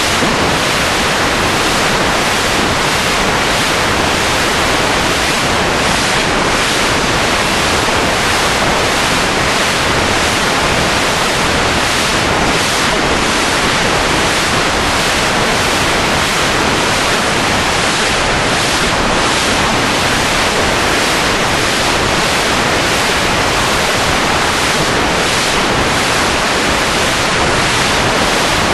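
Loud, steady rushing noise, even across the range like static, with no pitch or rhythm and no change throughout.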